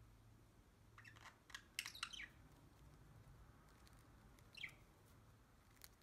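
Budgerigars chirping: a quick run of short chirps that fall in pitch about a second in, then a single falling chirp near the end.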